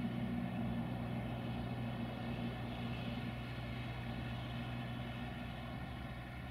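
Diesel multiple unit's engine droning steadily as it runs away down the line, slowly fading with distance.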